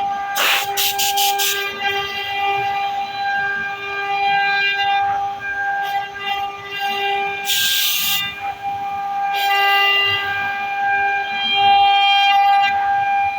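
CNC router running with a steady machine whine while it cuts wood, broken by short bursts of hiss near the start and again about eight seconds in.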